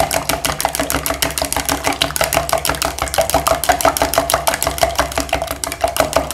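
Chopsticks beating eggs in a plastic measuring jug: rapid, even clicking as the sticks strike the jug's sides.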